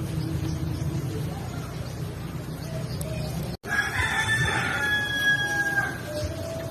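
A rooster crowing once, a single long call starting a little over halfway through and falling away at its end, over a steady low rumble.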